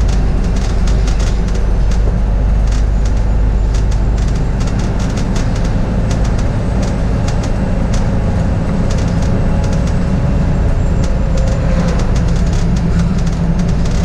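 Cabin noise of a moving city bus: steady low engine and road rumble with frequent short rattles and clicks throughout.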